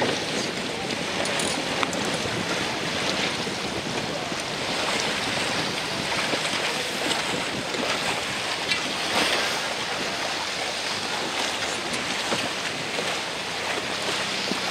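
Wind buffeting the microphone over a choppy sea, with a steady wash of waves and water splashing.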